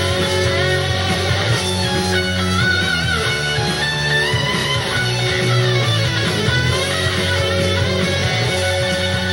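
Hard rock instrumental break: an electric guitar lead line with bent, gliding notes over a steady guitar-and-bass backing.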